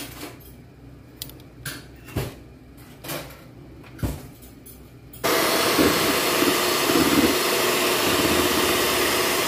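A Kenwood electric hand mixer switches on about five seconds in and runs steadily, its beaters whisking eggs, sugar and vanilla in a bowl. Before that there are a few light clicks and knocks.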